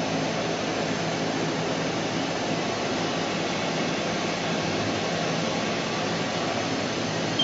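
Haas VF-6 vertical machining center's spindle running steadily at 500 RPM in the low range of its two-speed geared head, a steady hum.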